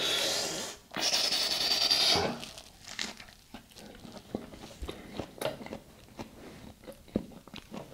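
Close-miked eating of a fajita beef taco: loud crunchy biting in the first two seconds, then chewing with small wet clicks and smacks.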